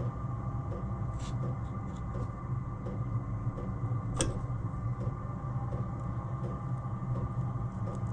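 A steady mechanical hum with a few constant pitches, with a light click about a second in and a sharper knock about four seconds in.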